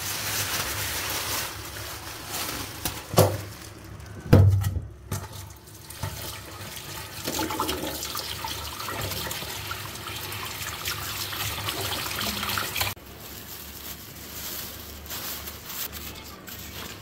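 Plastic bag rustling and two heavy thumps, then tap water running steadily over a whole raw chicken in a pot as hands rub it clean. After an abrupt cut about 13 seconds in, quieter crinkling of newspaper and plastic as dried fish are unwrapped.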